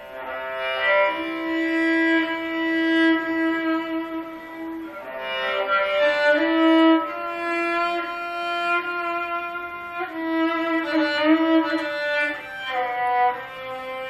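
Four-string Cretan lyra (cello lyra) with twenty sympathetic strings, tuned C-G-D-A, with a walnut body and Lebanese cedar soundboard, bowed in slow phrases of long held notes.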